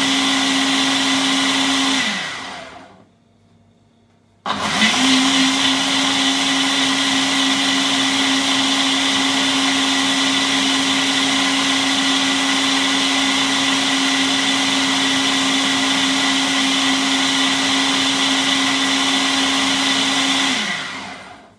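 Ninja BL492UK Auto-IQ blender's motor blending milkshake on its Blend program, a loud, steady high whine. It spins down about two seconds in, stops for a moment, starts again abruptly, runs on steadily and spins down to a stop near the end. The stops and restarts are the automatic program's pauses.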